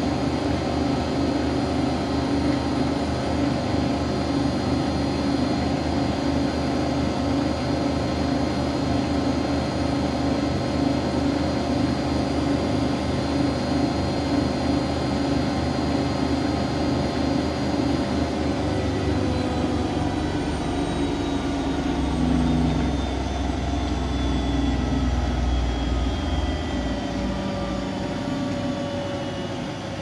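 Siemens Siwamat iQ 716 front-loading washing machine spinning at high speed, with a steady motor whine. A little over halfway through, the pitch starts falling as the drum winds down from its spin, and a deeper low hum comes in as it slows.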